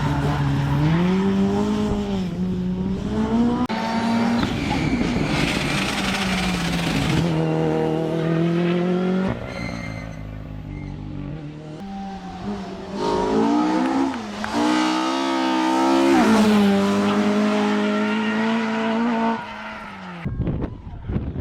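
Rally car engines revving hard on a special stage, pitch climbing and dropping sharply with each gear change and lift-off, across several short passes cut one after another.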